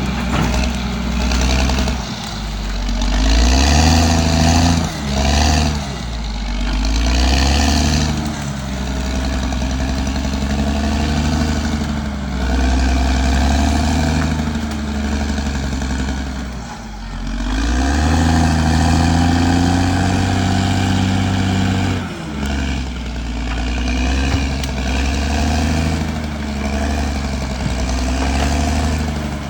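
Caterpillar D6R XL bulldozer's diesel engine working under load, its pitch rising and falling repeatedly as it revs up and eases off.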